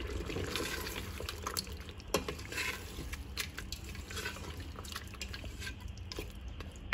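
A black plastic spoon stirring cream into chicken curry in a steel pot, with scattered light knocks and scrapes of the spoon against the pot.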